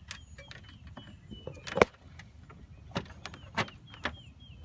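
Scattered light clicks and knocks of wire and a floor mat being handled in a golf cart, with one sharp knock about two seconds in.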